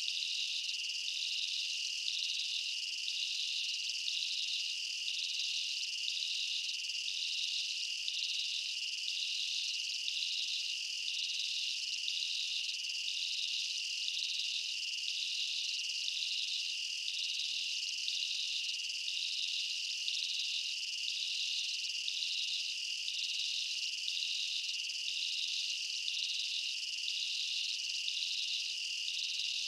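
A steady, high-pitched chorus of insects chirring, with a slow, regular pulse running through it.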